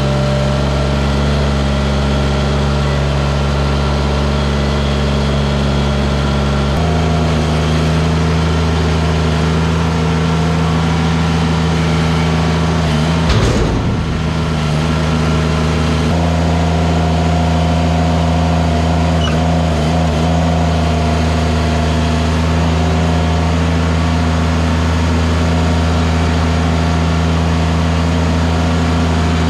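Skid steer engine running steadily, shifting to a different engine speed about seven seconds in and again about sixteen seconds in, with a brief rumble between.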